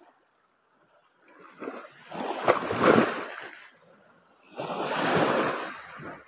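Small waves washing in at the water's edge: two surges of rushing, splashing water, the first peaking about halfway through and the second near the end.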